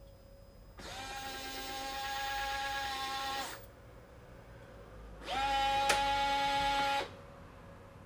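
Loqed Touch smart lock's motor module running through its self-calibration: two runs of a steady motor whine as it drives the lock mechanism. The first lasts nearly three seconds; the second is shorter and louder, with a click partway through.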